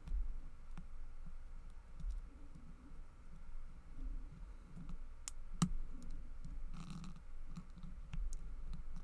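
Lock pick working the pins inside a Master Lock No. 5 stainless steel padlock, going back through its four pins under tension: scattered small clicks and taps, with a couple of sharper clicks about five and a half seconds in.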